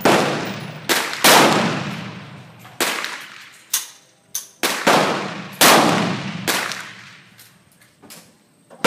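AR-15 rifle firing about five spaced single shots, each a loud crack followed by a long echoing decay, with fainter sharp cracks in between.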